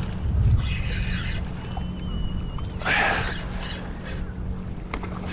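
Water rushing along a kayak's hull as a hooked jack crevalle tows it, with wind rumbling on the microphone. There are two louder rushes, about a second in and about three seconds in.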